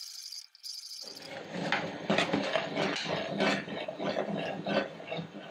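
A metal spoon stirring thick kadhi in an aluminium pressure cooker, scraping against the pot's sides and bottom in quick irregular scrapes and knocks. It starts about a second in, after a faint hiss.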